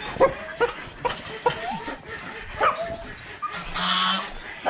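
Hunting dogs yelping excitedly as they are let out of their kennels: a quick string of short calls that bend up and down in pitch, with a longer, harsher call about three and a half seconds in.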